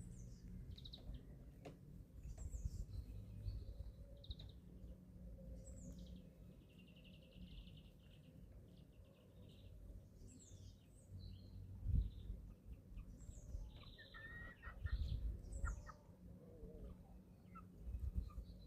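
Young chickens, 11-week-old chicks, peeping: many short high calls that fall in pitch, with a fast trilling call about six seconds in. A low rumble sits under them, with a few dull thumps around twelve and fifteen seconds in.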